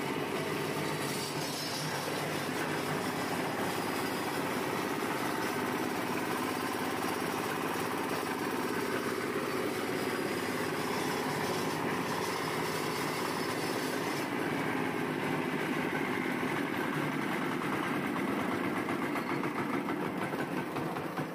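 Small single-cylinder stationary diesel engine running steadily, turning the belt drive of a hydraulic leaf-spring pressing machine. Near the end its sound turns uneven and pulsing.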